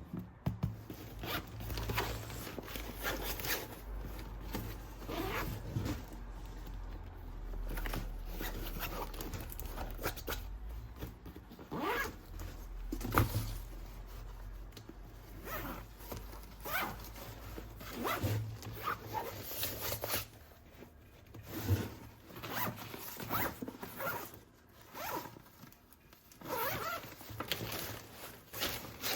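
Toy packaging being opened and handled: many short, irregular ripping and scraping strokes, like tape or plastic being pulled and torn, over low handling bumps.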